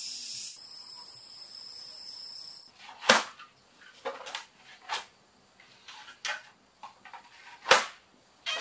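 Machete chopping at a long bamboo pole. From about three seconds in comes a string of sharp chops, roughly one a second, two of them much louder than the rest. Before the chopping, insects buzz steadily.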